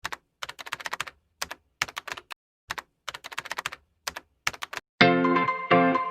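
Keyboard-typing clicks coming in quick, irregular clusters, then music with clear pitched notes starts about five seconds in.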